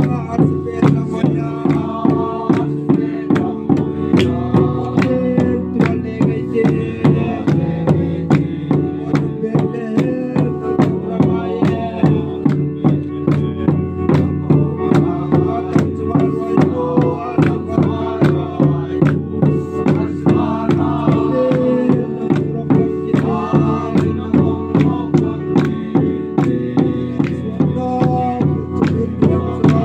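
A group singing a hymn to a steady beat of two-headed barrel drums struck with sticks, about two strikes a second, with hand clapping.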